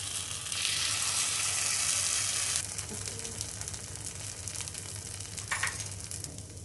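Dosa batter sizzling as it is spooned into the hot, oiled cavities of an appe pan. A loud, even hiss for the first two and a half seconds, then a quieter, steady sizzle.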